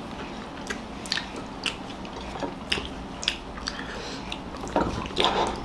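People chewing mouthfuls of egg biryani, with irregular wet smacks and clicks of lips and mouth. A louder burst of rustling, smacking noise comes near the end.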